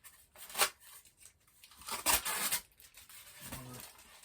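Packing tape being pulled off a cardboard box, one loud rip of about half a second some two seconds in, with a sharp click of box handling before it.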